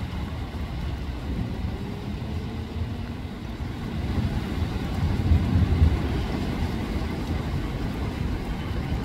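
Honda CB500X's parallel-twin engine running as the motorcycle is ridden, with wind noise on the microphone; the engine rumble swells about halfway through.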